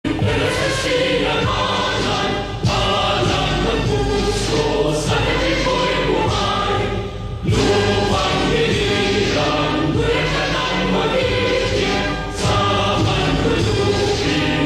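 Music with a choir singing, cutting in suddenly out of silence.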